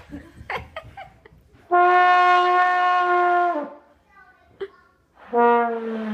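A beginner playing a trombone: one long steady note held about two seconds. Near the end comes a lower note that slides down further in pitch.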